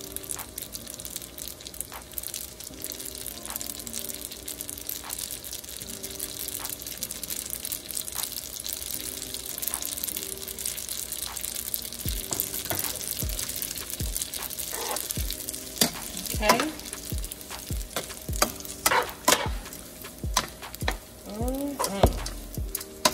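Garlic and noodles frying in hot oil in a pan: a steady sizzle. From about halfway through, a utensil clicks and scrapes against the pan as the food is stirred.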